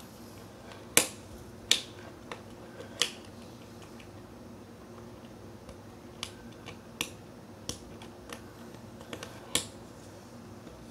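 Irregular sharp plastic clicks and taps as a small clip-style MP3 player and its earphone cable plug are handled and fitted together on a desk, about a dozen in all, the loudest about a second in, twice more in the next two seconds and once near the end.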